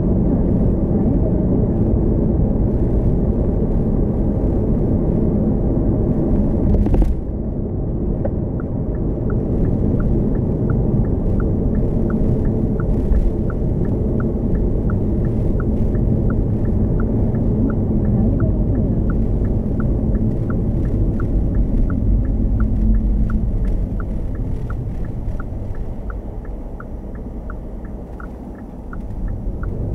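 Steady low road and tyre rumble inside a moving Hyundai Kona Hybrid, with a single thump about seven seconds in. Soon after, a regular turn-signal tick starts, roughly twice a second, and runs on. The rumble fades as the car slows, then picks up again near the end.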